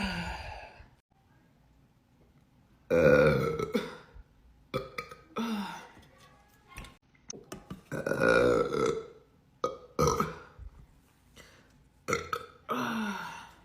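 A run of loud burps from young women, one after another with short pauses between, the longest two drawn out for about a second each.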